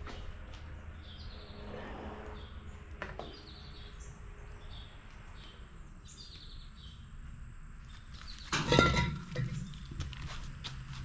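Background ambience with small birds chirping repeatedly, short high chirps about once a second. About eight and a half seconds in, a brief loud clatter.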